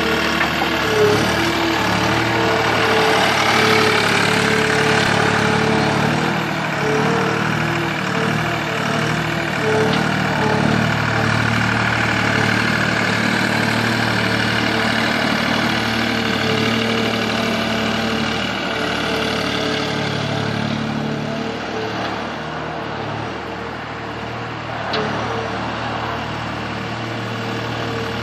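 2005 Gehl 4640 Turbo skid steer's turbocharged diesel engine running steadily, with a few light clicks.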